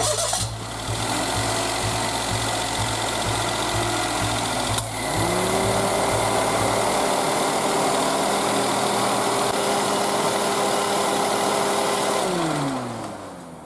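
Daihatsu Esse's small three-cylinder engine running steadily. About five seconds in there is a click, then a steady whine rises in, holds, and winds down near the end as the sound fades.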